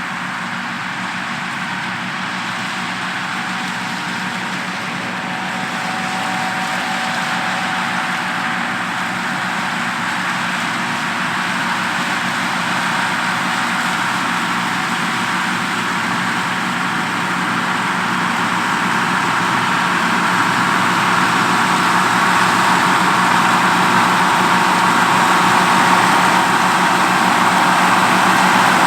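Oliver 1655 tractor working a 2-row New Idea 324 corn picker in a corn field, its engine running steadily under load along with the picker's machinery, growing gradually louder.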